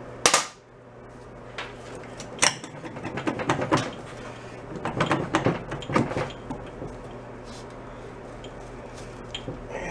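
Metal clanks and rattles as a Jawa 350's exhaust muffler is wiggled and pulled to work it loose from the bike: a sharp clank just after the start, then scattered knocks and short rattles that die down over the last few seconds.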